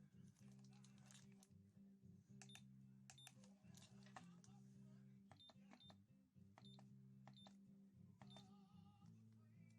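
Faint clicks with short high beeps, several times, typical of the buttons of a digital LED alarm clock being pressed to set it.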